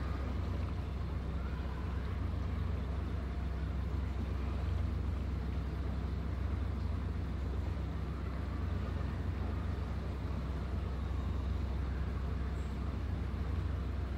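Narrowboat's diesel engine running steadily at cruising speed, a low, even hum.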